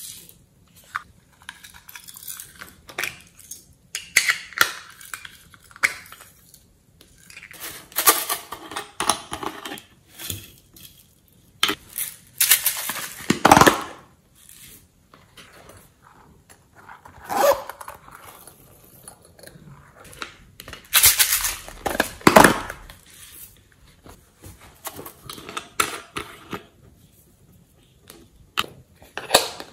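Plastic containers and a glitter bottle handled, tapped and shaken over a glass baking dish as glitter and slime ingredients are emptied in: irregular clicks, rattles and rustling, with two longer, louder scraping rushes about halfway through and near two-thirds of the way.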